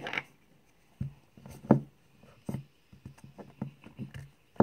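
Plastic Play-Doh tub handled on a tabletop while dough is dug out of it: a string of dull knocks and small taps, the loudest a little under two seconds in.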